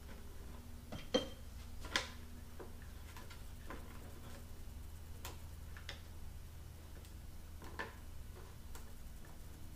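Scattered light clicks and taps of hands working on an outboard motor's wiring and plastic electrical parts, the two loudest about one and two seconds in, over a faint low steady hum.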